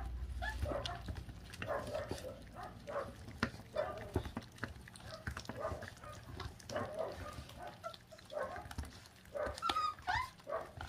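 26-day-old puppies chewing and tearing at raw meat on the bone, with irregular wet smacking and small clicks of teeth. Short grunts and squeaks come between bites, a few louder squeaks near the end.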